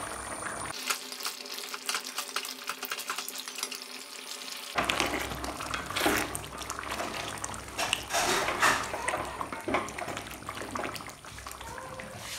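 Beef curry bubbling in an open kadai, with many small pops, as its liquid cooks down over medium heat. From about five seconds in, a spatula stirs and scrapes through the thickening gravy in irregular strokes.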